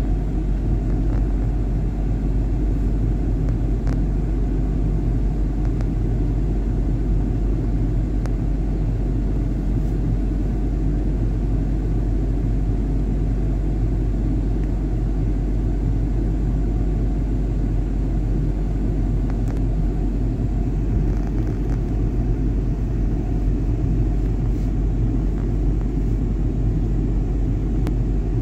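Steady low engine and road rumble heard from inside a car's cabin, even in level, with no break.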